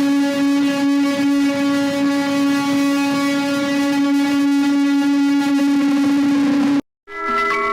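An alarm tone that has just risen in pitch holds one steady note, then cuts off suddenly near the end. After a brief gap, a quick run of higher chime-like notes begins.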